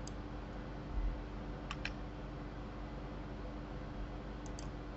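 Faint computer mouse and keyboard clicks over a steady low room hum: a click at the start, a quick pair a little under two seconds in, and another pair near the end.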